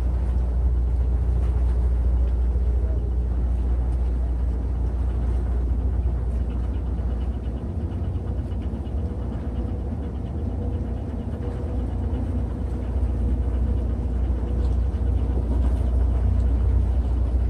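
Steady low rumble of wind buffeting the microphone, swelling and easing slightly, with a faint hum underneath.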